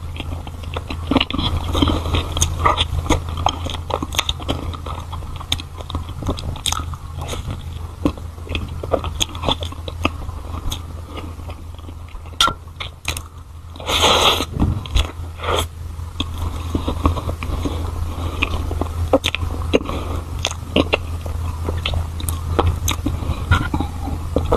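Close-miked mouth sounds of biting into and chewing a soft strawberry cream bun filled with jam: many small wet clicks and smacks, with a louder burst about halfway through, over a low steady hum.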